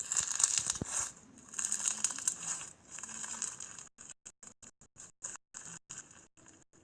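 Slime being squeezed and pressed, making a crackling, crinkling sound, heard through a played-back slime ASMR video. The sound is strongest in the first few seconds, then cuts in and out many times in quick succession from about four seconds in.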